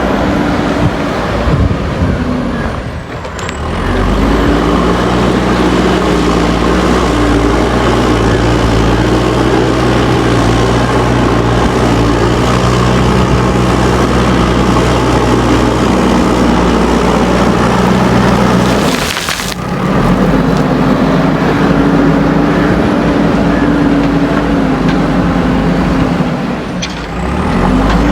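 JCB backhoe loader's diesel engine running hard under load, with its pitch shifting as it works. The sound drops out briefly three times, at about three seconds, near the middle and near the end.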